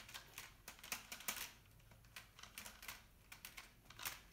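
Irregular light clicks and taps of a small plastic RC buggy being handled and turned over in the hands. The clicks bunch up in the first second and a louder one comes near the end.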